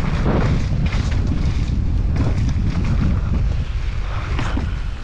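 Wind buffeting the microphone of an action camera on a mountain bike riding downhill, a dense low rumble with irregular knocks and rattles from the bike over rough ground.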